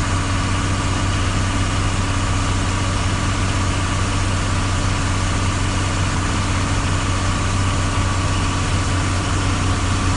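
Vehicle engine running steadily, heard from inside the cab: a constant low hum with an even hiss over it.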